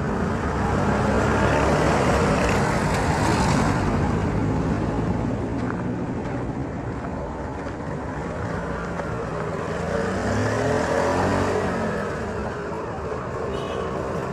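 Traffic on a paved street heard from a moving vehicle: continuous engine and road noise, with passing vehicles swelling louder twice, a few seconds in and again about two-thirds through.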